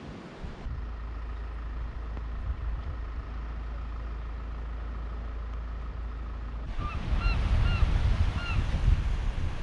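Steady low rumble of wind on the microphone. About seven seconds in the wind buffets harder, and a bird gives about five short calls, each rising and falling in pitch.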